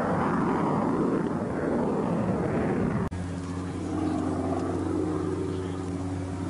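Jet fighter's engine noise as it flies a display pass, a loud rushing sound that cuts off abruptly about three seconds in. A steady, even drone with a low hum follows.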